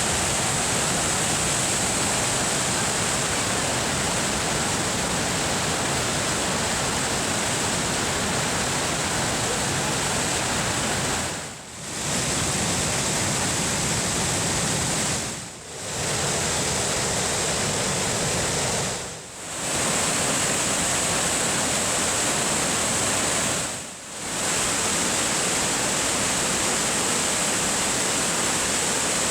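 Waterfall rushing in a steady, loud roar of water; the sound dips briefly four times.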